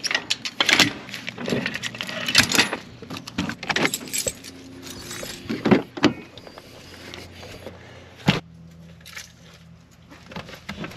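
Metal clinking and rattling of a trailer's safety chains and coupler latch being handled at a ball hitch: a string of sharp clanks over the first six seconds or so. A single thud follows about eight seconds in.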